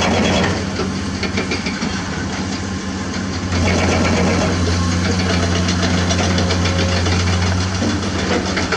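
Diesel engine of a piece of heavy construction equipment running steadily with a low hum. It drops back for a few seconds and then runs louder again.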